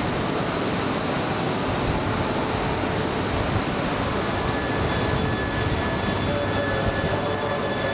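E3 series Shinkansen standing at a platform with its onboard equipment running in a steady hum. A thin steady whine comes in about halfway, and near the end a low tone rises as the train begins to pull away.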